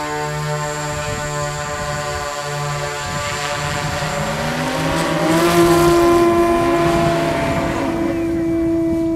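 CW-10 electric VTOL drone climbing on its lift rotors, a steady many-toned hum that pulses. About four seconds in a rising whine builds as the pusher propeller motor spins up, then settles into a louder steady drone as the drone goes over to fixed-wing flight.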